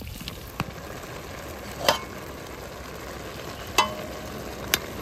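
Food sizzling in a hot pan, with four sharp clinks of a metal utensil against the pan, one of them leaving a short ring.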